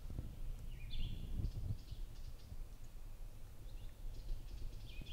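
A small songbird singing short phrases, about a second in and again near the end, over a steady low rumble.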